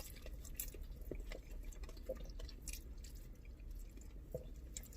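Quiet eating noises: scattered faint mouth clicks and smacks from chewing, over a steady low hum.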